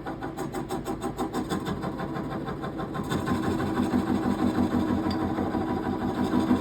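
Wood lathe spinning a glued-up black palm and zebra wood blank while a Forstner bit bores into its end: a steady machine sound with a rapid even pulsing, about six beats a second. About three seconds in it grows louder and deeper as the bit bites harder into the wood.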